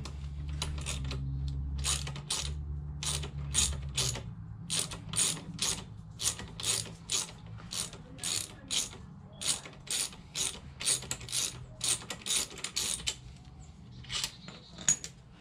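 Socket ratchet clicking as the lower 12 mm bolt of a Honda Grom's rear-set bracket is loosened: a steady run of pawl clicks, about two or three a second, over a low hum that stops about four seconds in.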